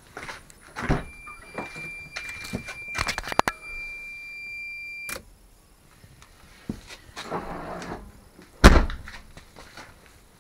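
Toyota MR2 car door handling: clicks and knocks, then a steady high warning buzzer tone for about four seconds that stops with a click, a brief whirr, and a heavy thump near the end, the loudest sound, as of the door shutting.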